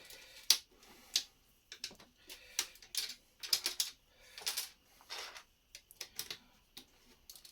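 Plastic Lego pieces clicking and clattering as they are handled, sorted and pressed onto plates, in irregular sharp clicks with short bursts of rattling.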